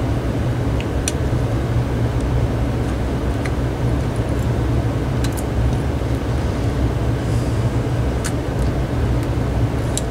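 Steady low background rumble, with a few small, sharp clicks of plastic cordless-phone handset parts being handled.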